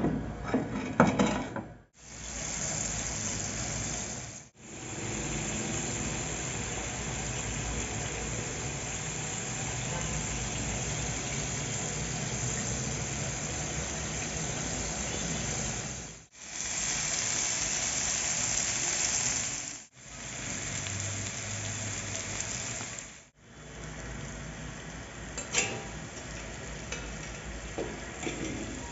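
Beef kebab skewers sizzling on a hot ridged cast-iron grill pan, a steady hiss broken by several abrupt cuts. A few sharp clatters at the start and a couple of light clinks near the end.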